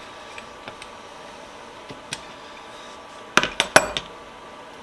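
Cleaned steel vise parts clinking against each other as they are handled: a few light taps, then a quick run of about four sharp metallic clinks about three and a half seconds in.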